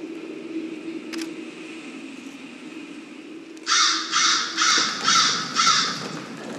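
Five harsh crow caws in quick succession, about two a second, starting a little past halfway, over a steady low hum.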